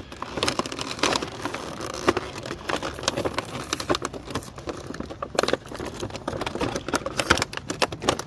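Stiff plastic packaging of an action figure being handled and pulled apart with both hands: a dense, irregular run of crinkles, clicks and snaps.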